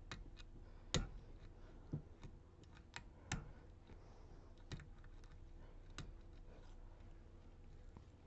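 Faint, irregular small metallic clicks and ticks of a lock pick working the pins inside a Ruko DP2 lock, with its sidebar already set. The clicks come about once a second and thin out in the second half.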